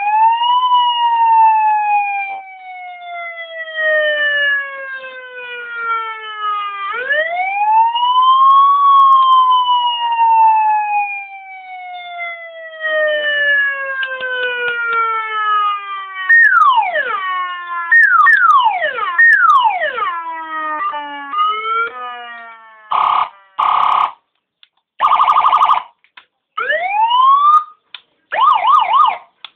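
Electronic BM siren module cycling through its tones. Twice there is a long rise followed by a slow falling wail, then quick repeated downward sweeps and short chirps. After about 23 seconds come several steady horn-tone blasts and a short rising manual siren sweep.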